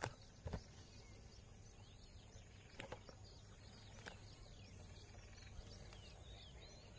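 Near silence: faint outdoor ambience with small birds chirping in the distance and a few soft clicks.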